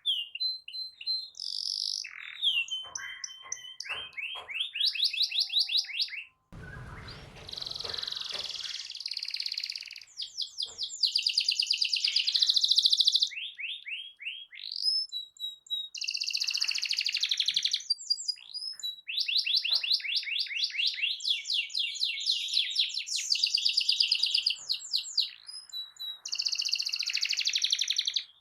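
Domestic canary singing: fast rolling trills and rapid repeated high notes in long bursts with short pauses. The song breaks off abruptly once about a quarter of the way in, with a low rumble under it for a moment after.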